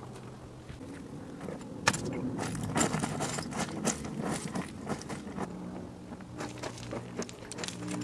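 Footsteps crunching and scraping on loose stony, gravelly ground, with irregular sharp clicks of stones underfoot. A faint steady low hum runs underneath.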